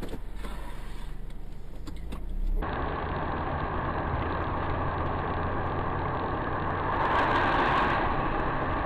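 Steady road and engine noise of a car driving at highway speed, recorded by a dash camera inside the car. It starts abruptly after a low rumble about two and a half seconds in, and grows louder for a moment about seven seconds in.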